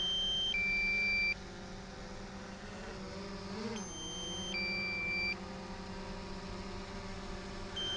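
Low-battery warning beeping from a drone's controls, a two-tone high-then-low beep repeating about every four seconds. Under it is the steady hum of the drone's propellers as it hovers close by for landing, with the pitch wobbling briefly about halfway through.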